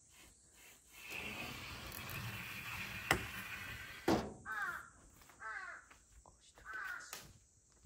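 A crow cawing three times, about a second apart, in the second half. Before the caws come a rustling scrape and two sharp knocks, the loudest sounds.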